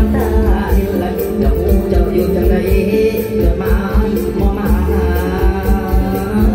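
Live mor lam band music over a loud PA: a male singer sings over a steady drum beat and bright, shaker-like percussion.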